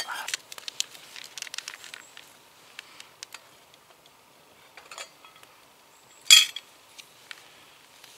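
A spoon stirring and clinking in a cup of instant 3-in-1 coffee, with quick clinks in the first two seconds and then scattered light taps. A single short, loud hissing rustle comes about six seconds in.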